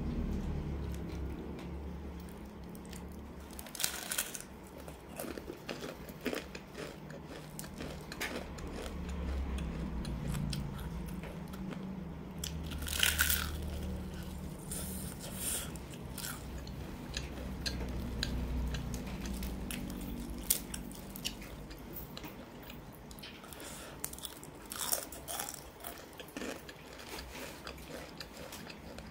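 Close-miked bites into crispy fried chicken, the breading crunching and crackling, with chewing between the bites. The loudest crunches come about four seconds in, near the middle and a few seconds before the end.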